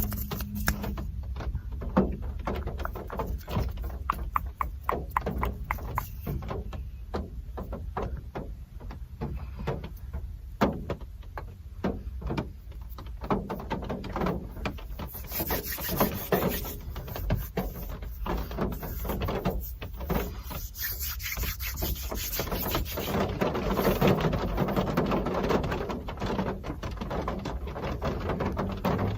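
Steady real rain, with many light, sharp clicks from close to the microphone. The clicks are thickest in the first half, and the rain hiss swells in the second.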